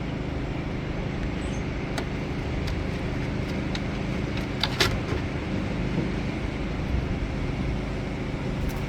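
Steady low background hum and rumble, with a few faint clicks.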